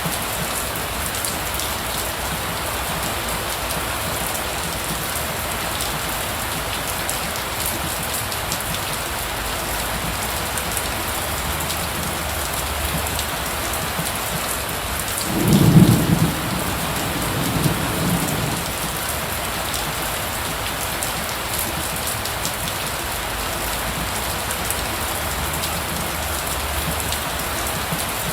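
Steady heavy rain falling. About halfway through, a low rumble of thunder rises and fades, followed by a second, weaker rumble.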